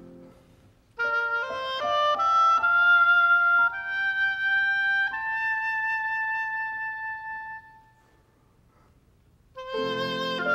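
Unaccompanied oboe passage, cadenza-like: a quick run of notes climbing upward, then long held high notes that fade away about three quarters of the way through. After a short silence, the piano and oboe come back in together near the end.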